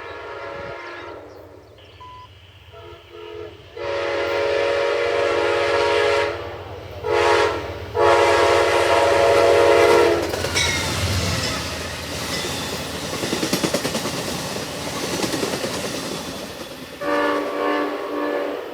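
Amtrak passenger locomotive's air horn sounding a series of chord blasts, long, short, then long, as the train nears the crossing. The train then rushes past with its wheels clicking over the rail joints, and the horn sounds again near the end.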